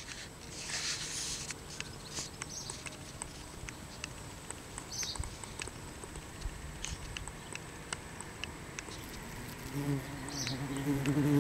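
Bumblebee at a flower: faint scattered ticks and rustles, then about ten seconds in a low buzz of its wings starts up.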